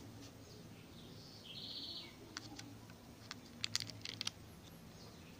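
Faint handling sounds: a scatter of sharp clicks, with a little crinkle, from the plastic yogurt cup and its foil lid being moved about. A bird chirps faintly in the background about one and a half seconds in.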